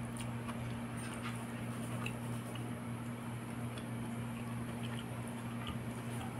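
Soft, scattered small clicks and squishes of fingers picking apart a tilapia cooked in coconut milk, with quiet chewing, over a steady low hum.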